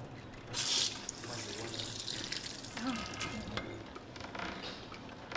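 Water running and splashing, with a short hiss about half a second in.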